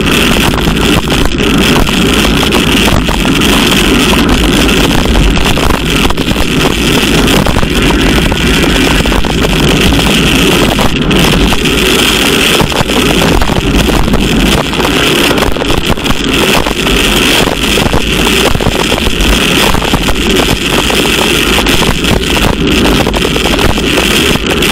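Loud, steady wind noise on a bike-mounted camera's microphone, mixed with tyre hiss on a wet road, from a road bike riding at about 40 km/h in the rain.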